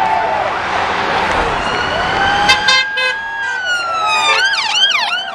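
Police car siren sounding as the car approaches: slow wailing sweeps, a few short horn-like blasts about two and a half seconds in, then a fast yelp near the end.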